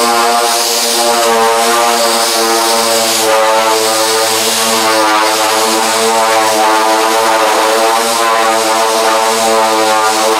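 Pneumatic dual-action (DA) sander running steadily on a bare-steel car hood, a steady whine with air hiss, sanded with light pressure to show up small dents as spots.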